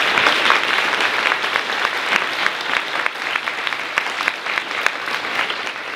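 Audience applauding, many hands clapping at once, slowly dying down.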